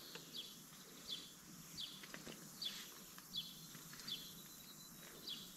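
Faint, high chirps from a small bird, a short falling note repeated evenly about every three-quarters of a second, with a few light taps.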